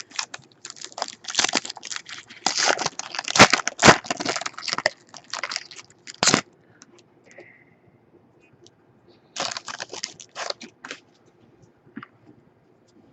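A trading-card pack wrapper being torn open and crinkled by hand, in two bouts of crackling: a long one at the start and a shorter one about nine seconds in.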